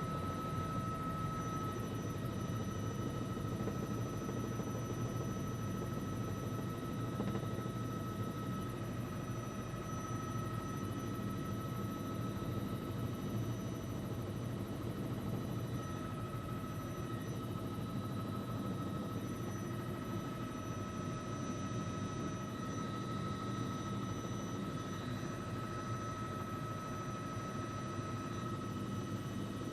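News helicopter in flight: a steady drone of its engine and rotors, with a steady high whine over it.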